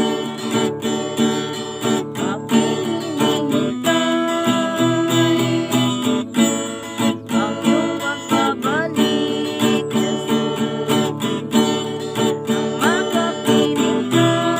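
Acoustic guitar strummed in a steady rhythm, an instrumental passage of a devotional song with no voice in it.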